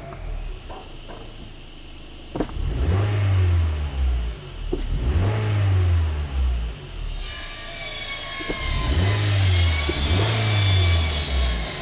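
Honda Fit's 1.5-litre four-cylinder L15A engine revved in four short throttle blips, each rising and falling back. The engine misfires when the throttle is opened.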